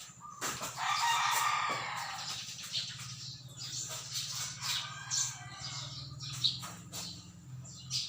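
A bird's call lasting about a second, followed by scattered clicks and knocks over a steady low hum.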